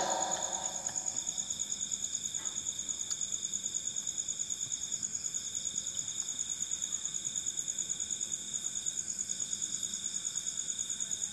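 Insects chirping: two steady high-pitched trills at different pitches, each pulsing rapidly and evenly. The lower trill breaks off briefly twice.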